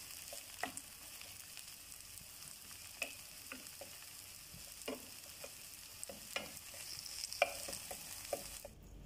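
Sliced button mushrooms sizzling gently in a nonstick frying pan, with a wooden spatula knocking and scraping against the pan every second or so. The sizzle cuts off suddenly near the end.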